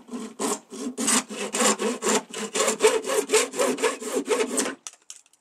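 Hand saw cutting through 30 mm PVC pipe with quick, even back-and-forth strokes, about four or five a second, stopping shortly before the end.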